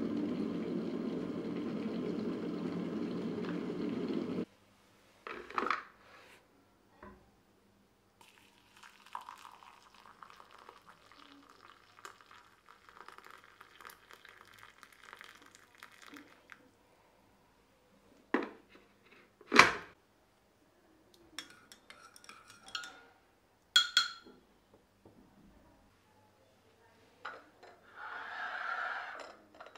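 Electric kettle rumbling as it comes to the boil, then cutting off abruptly a few seconds in. Hot water is then poured into a ceramic mug, followed by several sharp clinks of ceramic and a spoon, and a short scrape of a small ceramic bowl being set on the counter near the end.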